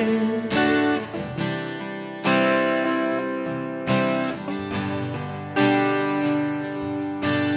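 Two acoustic guitars strumming chords with no singing, a strong strum about every second and a half left to ring between lighter strokes.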